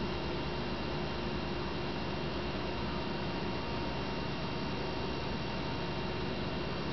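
Steady electrical hum under an even hiss, with a few faint steady tones and nothing else happening.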